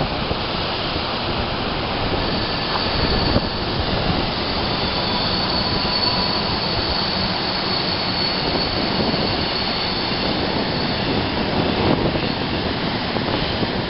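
A train passing on the canyon side: a steady rumble of locomotives and rolling wheels, with a thin high whine for much of it, over the rush of a rocky river.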